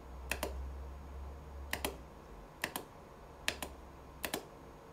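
Computer mouse clicking, five quick press-and-release clicks about a second apart, placing points of a cut line in dental CAD software.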